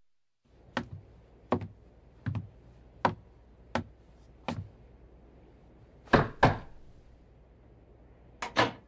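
Slow footsteps on a wooden floor, six even steps, followed by knocking on a wooden door: two knocks about six seconds in and two more near the end.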